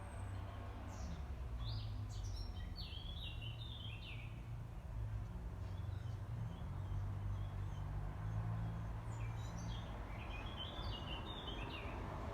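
A songbird singing two short phrases of quick chirping notes that step down in pitch, about eight seconds apart, over a steady low rumble of outdoor background noise.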